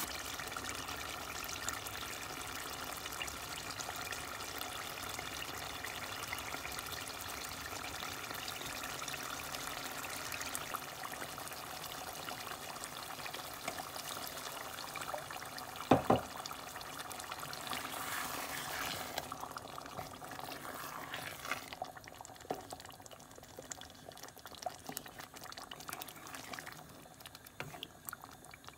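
Thick meat curry bubbling and sizzling in a pot as it is stirred. There is one sharp knock, the loudest sound, about sixteen seconds in. The sizzle grows quieter over the last third.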